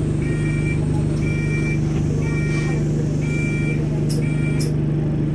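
Stationary single-deck bus's diesel engine idling with a steady low hum, while a high electronic warning beeper sounds about once a second, five times in all.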